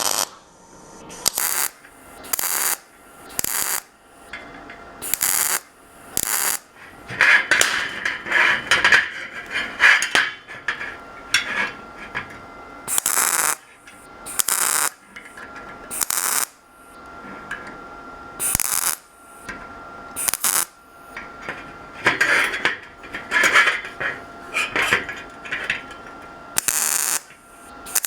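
Welding on a steel bracket in many short, sharp bursts, roughly one every second or two, with a couple of longer crackling runs: the support piece being stitch-welded onto the fuse box bracket.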